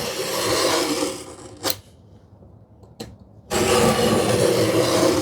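Knife drawn along a straight edge, scoring a line into plywood: two long scratching strokes with a short tap between them.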